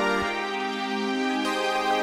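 Slow background music with long held notes that change about once a second.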